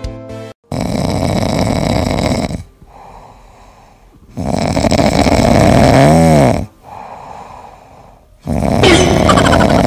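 A sleeping cat snoring: three long, loud snores about four seconds apart, with much quieter breathing between them.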